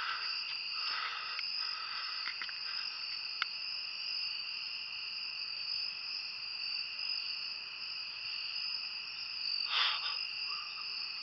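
Crickets chirring in a steady high-pitched chorus at dusk, with a brief soft rustle about ten seconds in.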